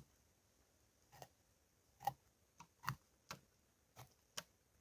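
Large knife slicing through a traíra's flesh and rib bones on a wooden cutting board while filleting it: faint, irregular clicks and crunches, about seven in a few seconds.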